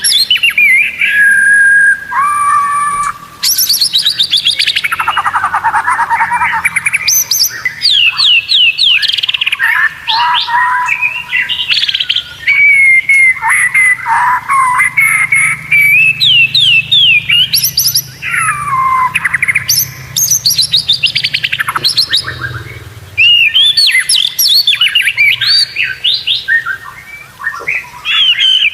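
White-rumped shama (murai batu) singing a long, varied song: clear whistles, fast trills and rapid rattling runs of notes, phrase after phrase with only brief pauses.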